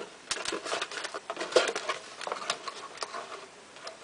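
A camcorder's box and packaging being opened and handled by hand: irregular rustling and crinkling with scattered clicks, loudest about a second and a half in.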